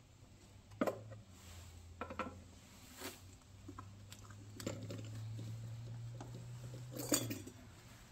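Light knocks and clatters as the metal parts of cut-open oil filters, end caps, base plates and a steel canister, are handled and set down on a wooden workbench, the sharpest knock just after seven seconds in. A low hum runs underneath for a few seconds near the middle.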